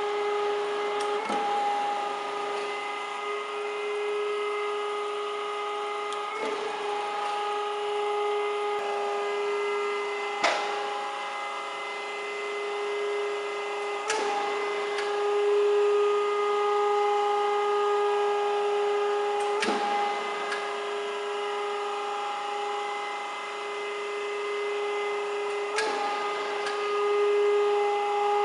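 ELB 14" x 36" automatic hydraulic surface grinder running, a steady motor and hydraulic hum with a fixed whine. A sharp knock comes about every four to six seconds as the reciprocating table reverses.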